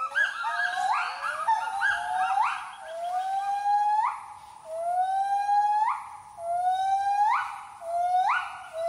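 Gibbon calling: a series of long whooping notes, each sliding upward in pitch, about one a second. A second voice overlaps in the first two seconds.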